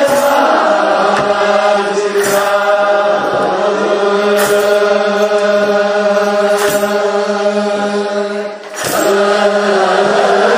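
Ethiopian Orthodox male clergy chanting a wereb hymn in unison, holding long steady notes over a low sustained pitch, with a drum beat about every two seconds. The chant dips briefly near the end before resuming.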